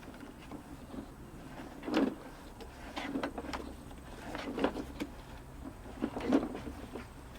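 Irregular knocks and clicks of hard equipment being handled, with louder knocks about two seconds, four and a half seconds and six seconds in.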